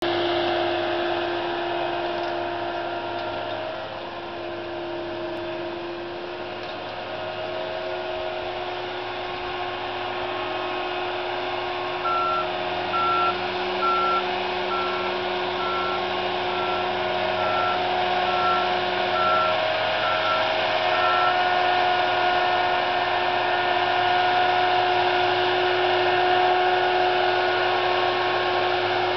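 Self-propelled crop sprayer running, a steady engine drone with a whine over it. From about twelve seconds in, a backup alarm beeps about a dozen times, roughly once a second.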